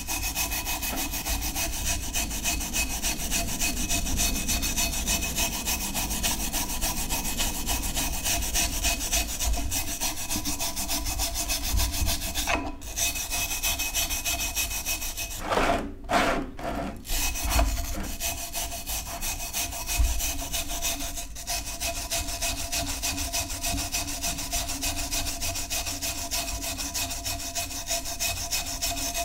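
Small wire brush scrubbing the wet, rusty handle of an old cast-iron flat iron in rapid back-and-forth strokes to take the rust off, with brief pauses about halfway through.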